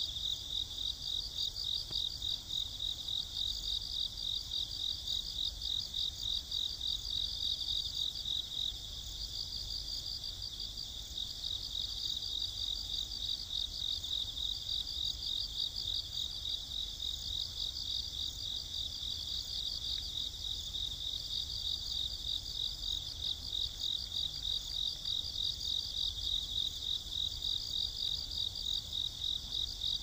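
Chorus of autumn insects singing: steady high-pitched chirping from several insects at once, pulsing rapidly without a break.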